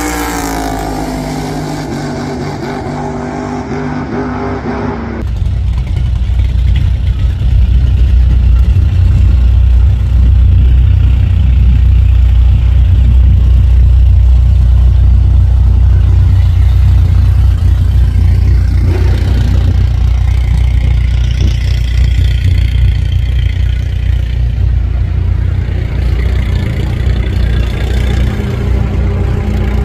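Two muscle cars under full throttle down a drag strip, their engine notes falling in pitch as they pull away. After a sudden change about five seconds in, a loud, deep engine rumble from muscle cars at the starting line.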